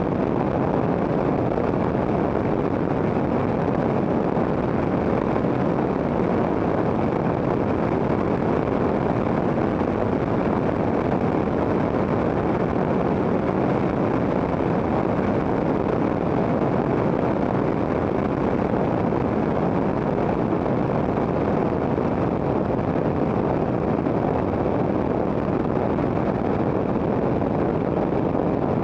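Quest Kodiak's single turboprop engine and propeller running steadily in level flight, with wind rushing over the microphone.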